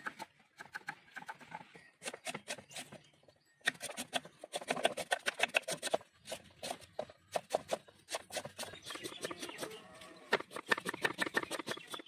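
Knife chopping red onions on a wooden block: quick, sharp knocks several times a second, in runs broken by a short pause a little after three seconds.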